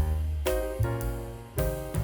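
Background music: a gentle piano tune with a bass line, notes struck in chords at a steady beat.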